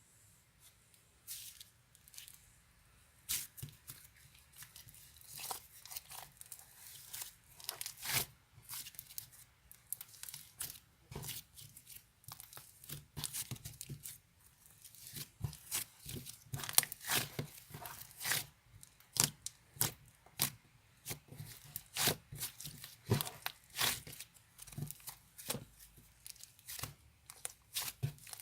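Irregular crackling, tearing and crinkling as crinkly material such as paper or plastic wrap is handled and torn, in quick uneven bursts close to the microphone.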